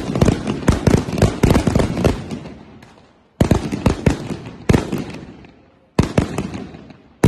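Firecrackers going off: a dense volley of sharp bangs for the first two seconds, then single loud bangs at about three and a half, four and three-quarter, six and seven seconds, each with an echo trailing away after it.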